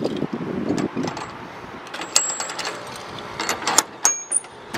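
Keys jingling and a disc padlock being unlocked and taken off the metal hasp of a storage-unit door: a run of metallic clicks and clinks, with a few short, high metallic tings about two seconds in and again near the end.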